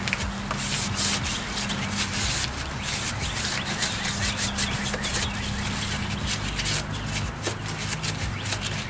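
Paper towel rubbed and scrubbed around inside a riding mower's air filter housing, wiping out dirt: a quick, irregular scratchy rubbing.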